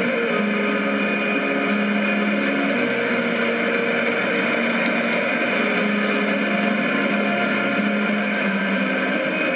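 Shortwave AM reception on 6160 kHz through a JRC communications receiver's speaker: steady static hiss cut off above about 5 kHz, with faint humming tones coming and going under it. Two short clicks about halfway through, as the receiver's display switches from clock to frequency.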